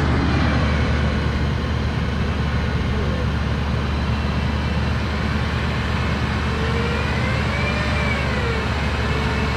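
Off-road 4x4's engine running steadily under load, with the continuous rumble of the vehicle driving over the track.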